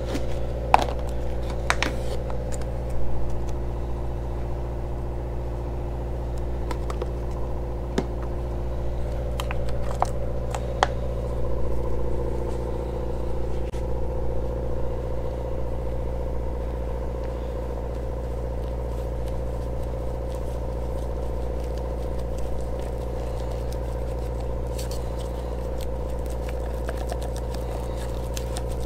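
A steady mechanical hum of a running motor throughout, with a few sharp clicks and knocks in the first dozen seconds as plastic containers are handled, and a wooden stir stick scraping in a plastic cup while epoxy putty with micro balloons and microfibers is mixed.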